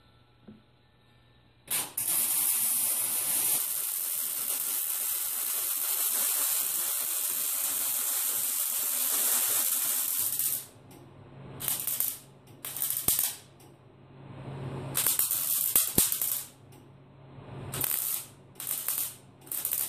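Millermatic 252 MIG welder arc crackling and hissing as it lays weld beads onto a CO2-cylinder bell: one long continuous run starting about two seconds in and lasting some nine seconds, then a string of short bursts of a second or less, with a low hum under them.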